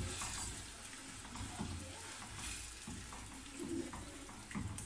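Chopped onions frying in hot oil in a nonstick karahi, a steady sizzle, with a silicone spatula stirring and scraping them around the pan.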